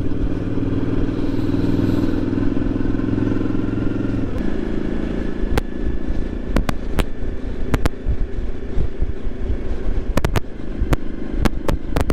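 Suzuki V-Strom motorcycle engine running under way on a wet road, with wind and road noise. The steady engine note changes about four seconds in, and a scatter of sharp clicks follows in the second half.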